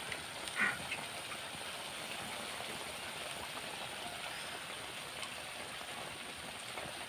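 Frog adobo sizzling in a wok over a wood fire, a low, steady hiss with the dish just cooked and steaming.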